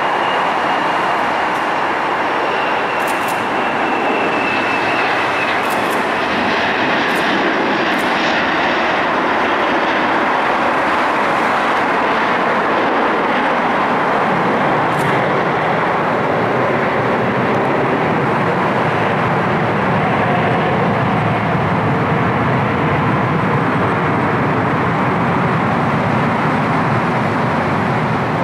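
Four rear-mounted Soloviev D-30KU turbofans of an Ilyushin Il-62M at takeoff power, making a loud steady jet roar. A high whine slides slightly down and fades in the first few seconds. The roar deepens as the airliner climbs away.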